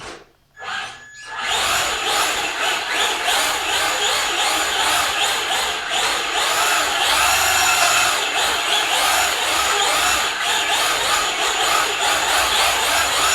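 Traxxas Slash RC short-course truck's electric motor whining and its drivetrain and tyres running on an indoor floor. After a brief burst, the motor starts about a second and a half in and runs steadily, the whine rising and falling with the throttle.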